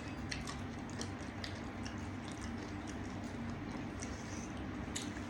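Quiet eating: faint chewing and a few light clicks, over a steady low background hum.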